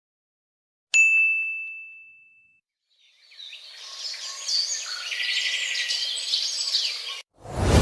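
A single bright bell-like ding that rings out and fades over about a second and a half. After a short silence, a few seconds of birds chirping, which cut off suddenly. Right at the end a deep, loud sound starts.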